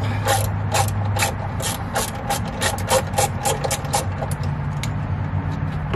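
Ratchet wrench on an extension clicking in quick short runs as it loosens a 10 mm bolt, about three to four clicks a second, thinning out after about four seconds.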